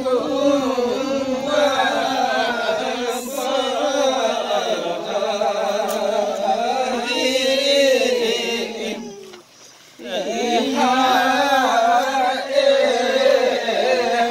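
Yakthung (Limbu) palam song sung by the hand-holding line of yalang dancers, in long-held, wavering notes. The singing breaks off briefly about nine seconds in, then the next line starts.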